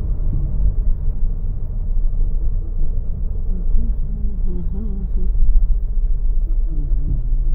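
Steady low rumble inside a car's cabin as it drives slowly along a street: engine and road noise.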